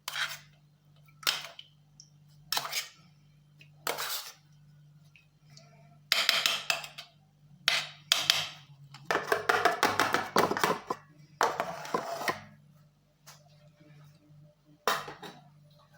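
A spoon scraping against a strainer as blended lemon pulp is pressed through it. There are short strokes about every second and a bit at first, then longer runs of scraping from about six to twelve seconds in, and one more stroke near the end.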